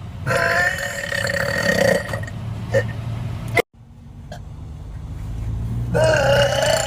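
A woman belching: one long drawn-out burp lasting nearly two seconds, then after a short break a second burp starts near the end.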